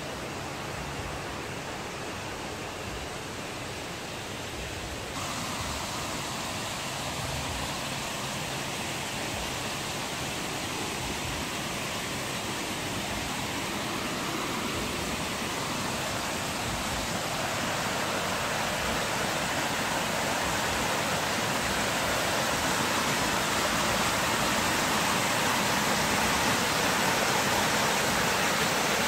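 Water fountain splashing: a steady rush of falling water that grows a little louder about five seconds in and keeps swelling slowly.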